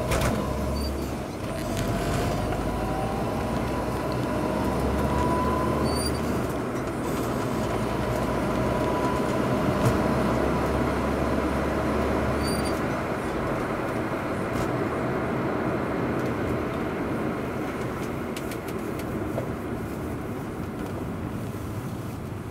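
Steady road and tyre noise and the drivetrain of a moving road vehicle, with a thin whine that rises in pitch over the first few seconds as it speeds up.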